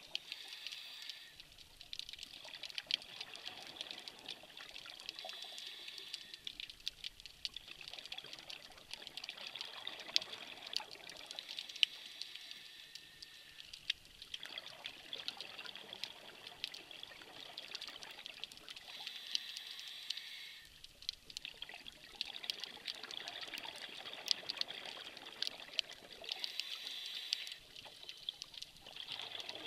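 Scuba diver breathing through a regulator underwater: a hiss on each inhale, then a bubbling rush of exhaled air, repeating every several seconds, with scattered short clicks.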